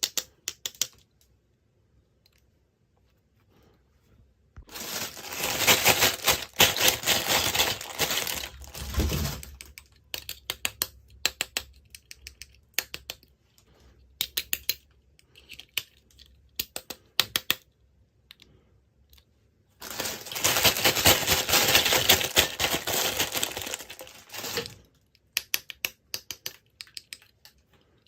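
Toy packaging being handled at close range: two long stretches of dense crinkling and rustling, with scattered small clicks and taps in between.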